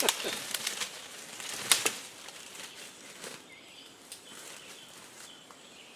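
Leafy branches rustling and twigs snapping as brush is laid over a bicycle. The sharpest snaps come twice about two seconds in, then it settles to fainter rustling.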